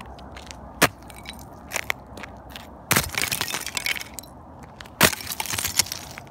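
Ice-crusted snow breaking under a boot, sounding like glass: three sharp cracks about two seconds apart, the last two each followed by a scatter of tinkling, crackling fragments.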